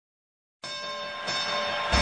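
Opening of background music: after a moment of silence, sustained bell-like tones ring together, growing a little louder, and a deep bass comes in right at the end.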